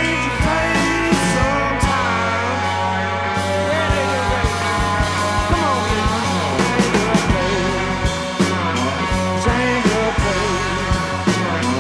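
Rock band playing an instrumental passage: a bending lead guitar line over a steady drum beat and bass.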